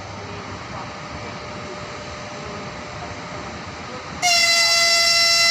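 Steady background hum at the platform. About four seconds in, the EP1M electric locomotive sounds its horn: one loud, high-pitched, steady blast, the signal for the train's departure.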